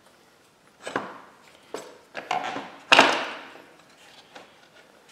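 Metal parts of a dirt bike's rear wheel assembly knocking and clanking as they are handled while the wheel is refitted: four knocks with short ringing, the loudest about three seconds in.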